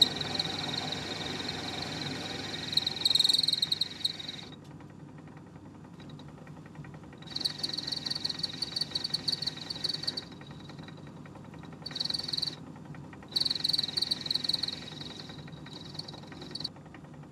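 Myford ML7 lathe running, with a carbide tool taking cuts on a spinning mild steel bar to turn a round boss. The cutting comes and goes in four spells, a high, rapidly pulsing crackle over the steady hum of the lathe.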